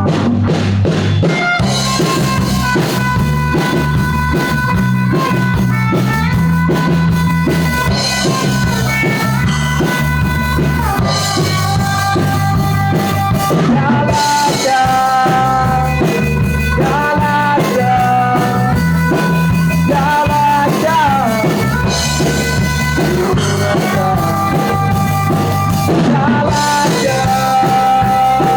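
Rock song played by a band: drum kit, bass and guitar keeping a steady beat under a gliding sung or lead melody.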